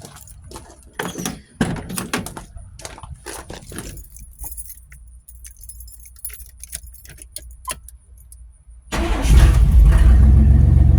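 Keys jangling and scattered clicks, then about nine seconds in the 1991 GMC Sonoma pickup's engine starts quickly and runs at a steady idle. This is the first run after a new PCV valve was fitted and a nozzle cleaned to cure a rough idle.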